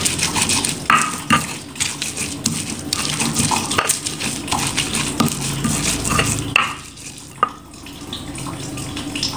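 Stone pestle crushing and scraping fried chillies, garlic and candlenuts into sambal in a stone mortar (ulekan and cobek), with frequent knocks of stone on stone. The grinding stops about six and a half seconds in, after which there is one last sharp click.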